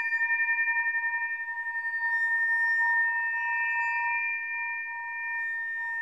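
Tibetan bells music: several overlapping bell tones ringing on and on in a sustained drone. The ring pulses quickly and evenly for the first second or so, then smooths out.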